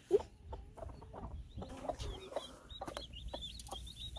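A broody hen clucking in short low notes. About two seconds in, newly hatched chicks join with quick, high peeps, several a second.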